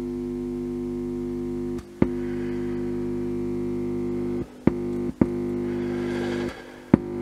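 Mains hum buzzing through an external loudspeaker from the Ekco AD75 valve radio's audio output stage, set off by a finger held on the output valve. It cuts out briefly with sharp clicks several times as the contact breaks and returns. The buzz shows the radio's power supply and audio output circuits are working.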